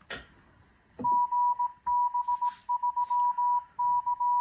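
A repeater's Morse code identification coming through a Yaesu FTM-500D transceiver's speaker: one steady beep keyed in short and long marks, starting about a second in, after a brief rush of noise at the start.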